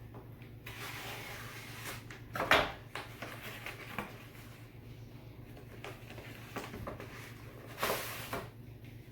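A mailed package being opened by hand: packaging rustling and crinkling, with a loud sharp burst about two and a half seconds in and another near the end.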